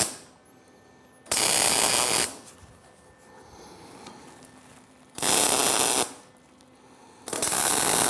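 Wire-feed (MIG) welder laying tack welds on steel braces: three separate bursts of arc noise about a second each, starting about a second in, about five seconds in and near the end, with the tail of an earlier tack at the very start.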